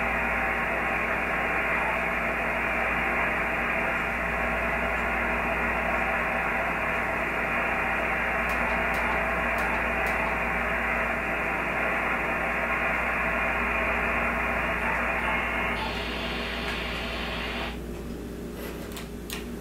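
Shortwave receiver static from a Yaesu FT-817 transceiver's speaker on a quiet ham band frequency: a steady hiss with no treble above the receive filter, the noise peaked by the tuned magnetic loop antenna. About three-quarters of the way through the hiss turns brighter and wider, then drops away almost entirely, followed by a few light clicks.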